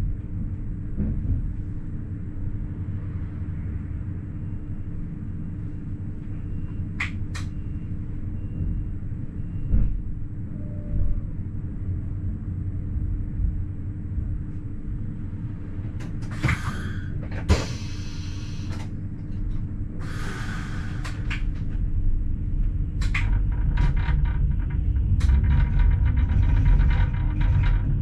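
Metre-gauge ABe 4/12 'Saphir' electric train of the Wynental- und Suhrentalbahn running along the line, heard from the driver's cab: a steady rumble of the running gear under a constant electric hum, with a few single knocks. Several short rushes of noise come in the second half, and the running grows louder near the end.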